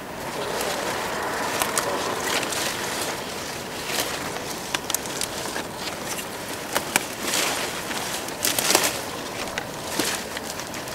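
Leafy garden plants rustling and crackling as they are handled and beetroots are pulled up by hand, with many sharp snaps of leaves and stems and a louder swish about eight and a half seconds in.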